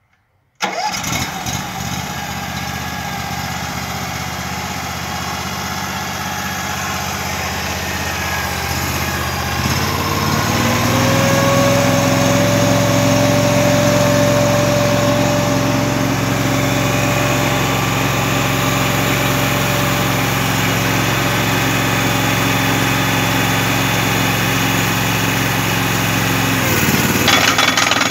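The small petrol engine of a hydraulic powerpack starts and runs steadily. About ten seconds in, its speed steps up and a steady whine from the hydraulic pump holds over it, as oil flow to the pile driver is set.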